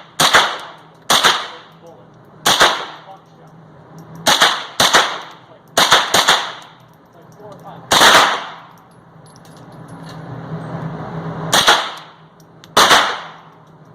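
Gunshots from firearms at a shooting range: about ten sharp reports at irregular intervals, some in quick pairs, each with a short ringing tail, with a longer pause before the last two.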